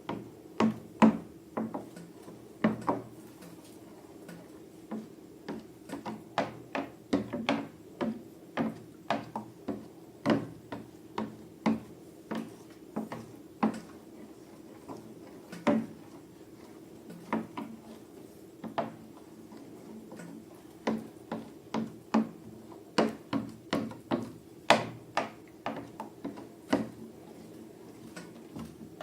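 Slime being worked, giving irregular sharp clicks and pops, about one or two a second, over a steady low hum.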